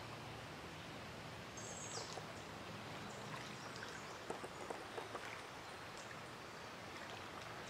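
Steady hiss of creek water running over a riffle. A short high bird chirp comes about two seconds in, and a few faint clicks follow a couple of seconds later.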